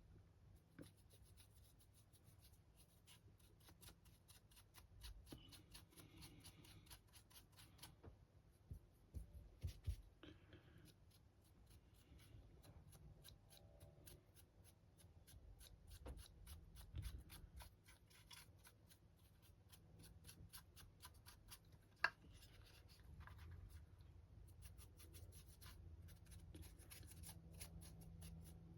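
Faint, rapid scratching of a large paintbrush's bristles working acrylic paint onto the rocky base of a 3D-printed model. It is a steady run of quick ticks, with one sharper click about 22 seconds in.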